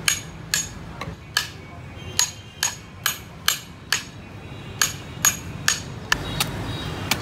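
Hammer striking the back of a large knife again and again, driving the blade through a grouper's head and bones: sharp metallic knocks about two a second, each with a short ring, in runs broken by brief pauses.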